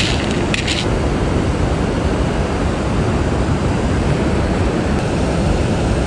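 Steady rush of a flowing river, loud and even throughout, with a few small sharp clicks in the first second.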